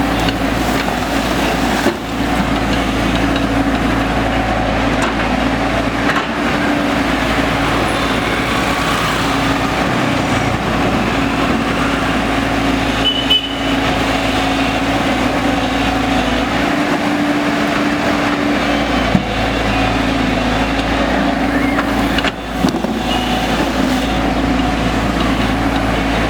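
JCB 3DX backhoe loader's diesel engine running steadily, with a few short knocks scattered through.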